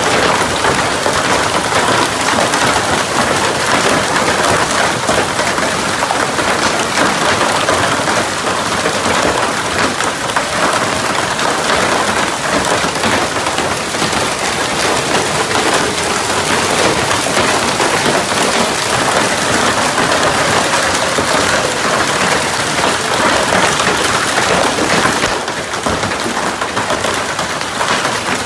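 Heavy hail falling, a dense, steady rattle of hailstones striking a Ford pickup truck, plastic bin lids and the ground. It eases slightly near the end.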